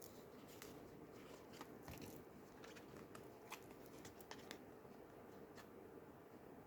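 Faint, irregular clicks and soft taps of oracle cards being handled and laid down one after another, over a low room hum.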